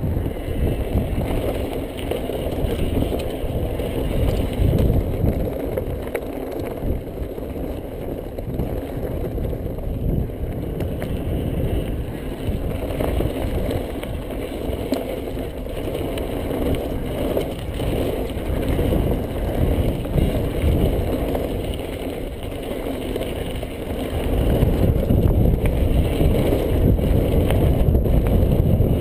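Yeti 575 mountain bike rolling fast down a gravel singletrack: tyres rumbling over the stony surface and the bike rattling, with wind rumble on the microphone. It gets louder near the end as the pace picks up.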